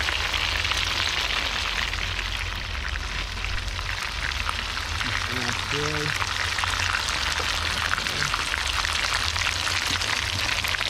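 Fish frying in hot oil in a pot: a steady, dense crackling sizzle.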